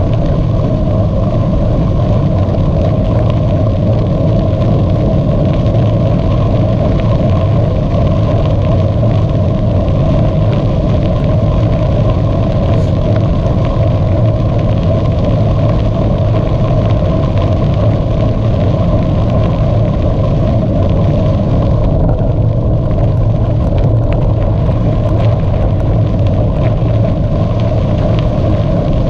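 Steady rushing rumble of wind buffeting the microphone, with bicycle tyres rolling underneath, while riding along at speed.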